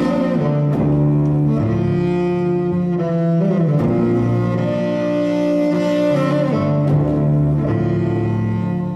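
Cello bowed in slow, held notes, playing the melody of a song's instrumental introduction.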